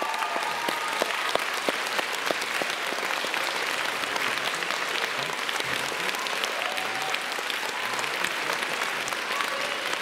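Audience applauding steadily with many hands clapping, and faint voices in the crowd underneath.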